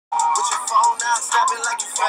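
Intro music: a hip-hop track with a vocal line, cutting in abruptly at the very start.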